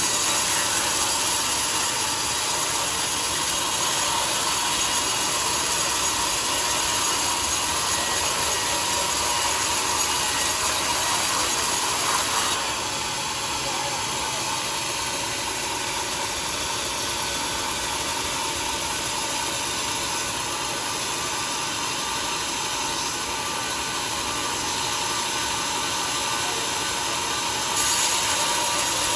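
Sawmill saw working on teak: a steady, dense mechanical noise that drops slightly about twelve seconds in and comes back up near the end.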